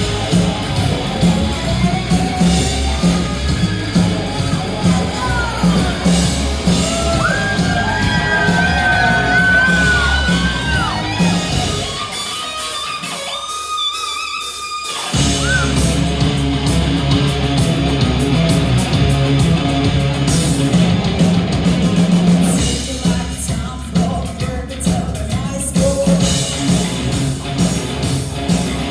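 A rock band playing live in a large hall: electric guitar, bass and drums with singing, including one long held high note. About twelve seconds in, the bass and kick drum drop out for about three seconds, then the full band comes back in.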